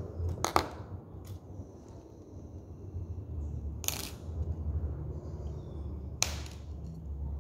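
Alligator-clip test leads being handled and clipped onto a metal nail electrode, giving three sharp clicks a few seconds apart and a fainter one just after the first, over a low steady hum.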